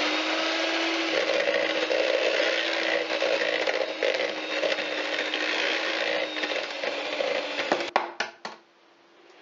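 Electric hand mixer running steadily at a constant pitch, its beaters working an egg into thick choux pastry dough in a plastic bowl. It switches off about two seconds before the end, followed by a few knocks as the mixer is set down against the bowl.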